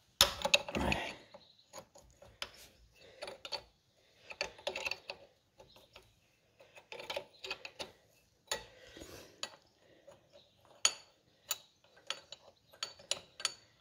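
Loose metal engine parts being handled and set down: irregular clinks, clicks and rubbing, with a louder rattle in the first second.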